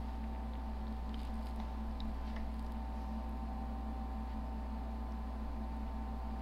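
Steady low electrical hum with a constant background hiss and a few faint ticks.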